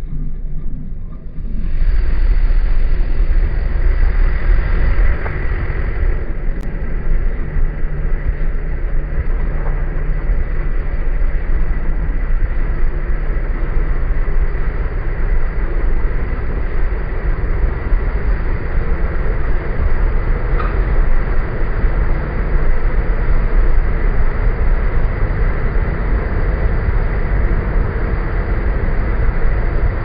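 Jeep Wrangler JK pulling away from a stop about two seconds in, then a steady low rumble of engine and tyres as it drives on.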